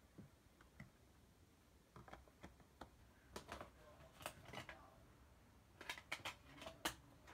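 Faint plastic clicks and taps of DVD discs and their plastic keep case being handled, with discs pressed on the centre hub. The clicks come in scattered clusters, sparse at first and more frequent from about two seconds in.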